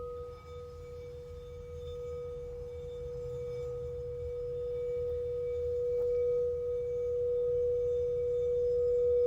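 Crystal singing bowl ringing with one steady, pure tone that swells gradually louder. A fainter, higher bowl tone rings alongside it and fades away about two-thirds of the way through.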